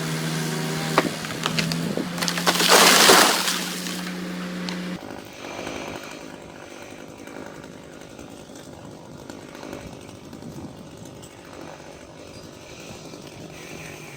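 Chainsaw running at a steady pitch, with a couple of sharp cracks and then a loud crash about three seconds in. The saw cuts off at about five seconds, leaving a fainter, steadier engine sound.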